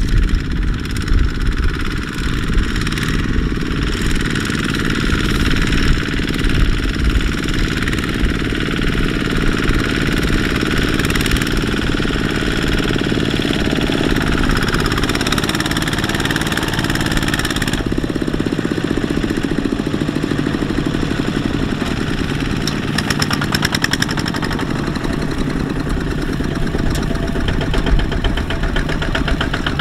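Single-cylinder Kubota ZT155 diesel engines of two-wheel walking tractors running steadily under load, with a knocking diesel chug as they haul trailers of rice sacks through mud.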